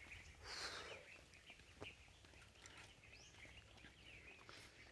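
Near silence: faint outdoor quiet with a few short, high, rising bird chirps.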